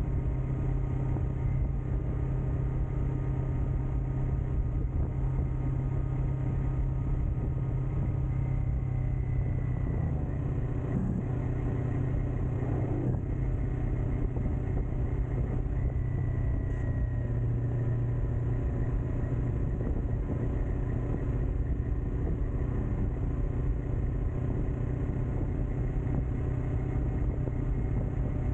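Kawasaki Ninja 400's parallel-twin engine through a Kemimoto aftermarket muffler, running at a steady engine speed while riding. Wind noise rushes over the microphone.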